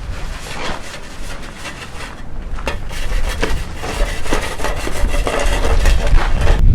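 Footsteps crunching and scraping through snow at a walking pace, with a low rumble of wind on the microphone that grows stronger near the end.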